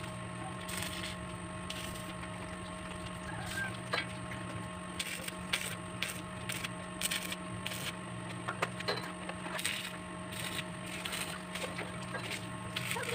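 Scattered short clicks and crackles from work on a steel pipe railing frame, over a steady low hum.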